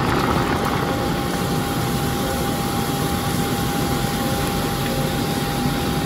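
A pot of beef stew with carrots and potatoes boiling hard: a steady rushing, bubbling noise, with a thin steady tone running under it.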